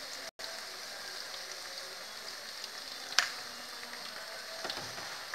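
Corn fritters frying in hot oil in a wok: a steady sizzling hiss with small scattered pops. The sound cuts out for an instant near the start, and a single sharp click a little after three seconds in is the loudest thing.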